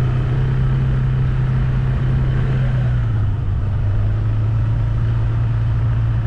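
A vehicle engine running steadily while driving, a constant low hum with rumble beneath it.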